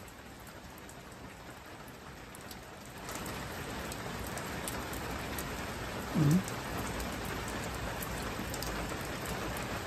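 Steady rain falling, heavier from about three seconds in. About six seconds in there is one brief low sound that dips and rises in pitch.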